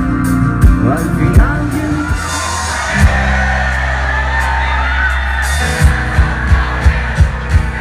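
Live rock band playing loud through a concert PA, with a sung lead vocal over bass and drums. Around the middle the drums drop out for a couple of seconds under a held low bass note, then the beat comes back at about three hits a second.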